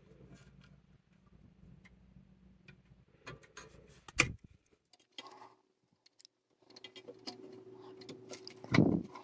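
Scattered small metal clicks and ticks from a Royal manual typewriter's ribbon mechanism being handled, with a sharp click about four seconds in and a louder knock near the end.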